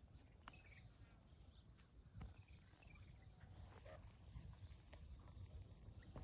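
Near silence: faint outdoor ambience with a few soft, distant bird chirps and scattered light ticks and rustles.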